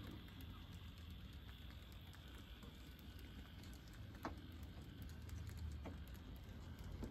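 Faint low rumble of an N gauge model freight train, a Class 66 locomotive hauling container wagons along the track, with a few light clicks from the running gear about four, six and seven seconds in.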